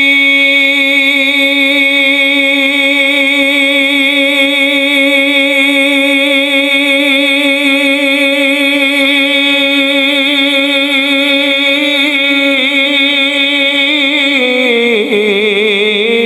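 A man's voice singing a naat, holding one long note for about twelve seconds, then wavering in an ornamented run and dropping lower in pitch near the end.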